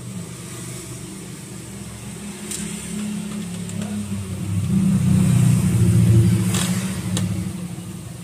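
A motor vehicle's engine passing by, growing louder to a peak about five to six seconds in and then fading, with a few faint clicks over it.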